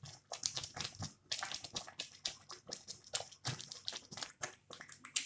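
Thick masala oats simmering in a pot, bubbles bursting at the surface in irregular little pops and clicks, several a second.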